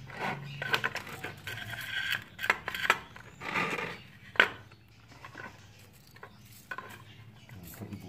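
Scattered small clicks, taps and rubbing sounds, with one sharp click about four and a half seconds in, over a faint steady low hum.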